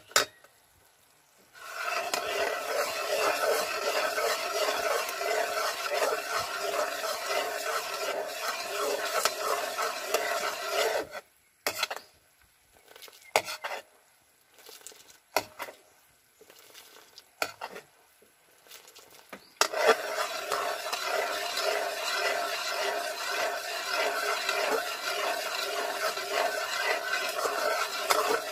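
Metal ladle scraping steadily round a steel wok while stirring bubbling brown sugar syrup, the wok ringing under it. The stirring starts a couple of seconds in, stops for about eight seconds midway, leaving a few scattered knocks, then starts again.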